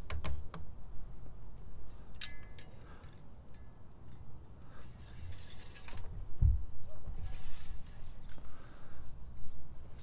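Metal engine-oil dipstick handled by hand during an oil-level check: light clicks and scrapes as it is wiped with a cloth rag and slid into and out of its tube. Cloth rustles come about five and seven seconds in, and a dull knock about six and a half seconds in.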